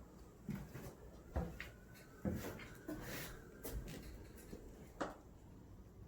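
A series of irregular knocks and clattering bumps, about half a dozen, over a faint low rumble.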